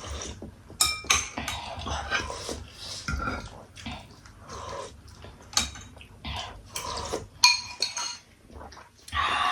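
Dishes and cutlery clinking and scraping irregularly during a meal, with many short knocks and a few brief ringing clinks.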